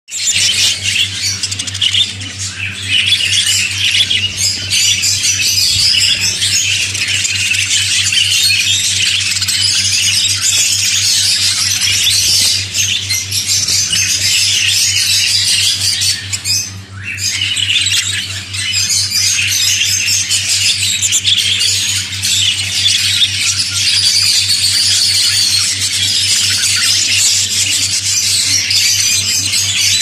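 A flock of budgerigars chattering and squawking together in a continuous, dense high-pitched warble, with a steady low hum underneath.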